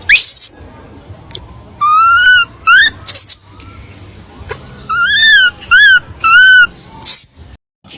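A monkey giving a series of short, high-pitched calls, each arching up and down in pitch, several in quick succession, with a couple of brief noisy bursts between them.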